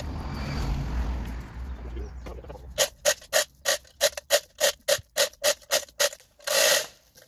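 Ratcheting clicks of a chain block being cranked with a long handle, about three clicks a second from about three seconds in, as it hauls a holly stump out of the ground. A longer scraping burst comes near the end, and a low rustling rumble comes before the clicks start.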